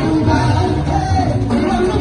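Loud music with singing over a strong, steady bass.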